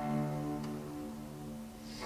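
Solo cello played with the bow, quietly, holding a note and moving softly to the next. A louder, lower note comes in right at the end.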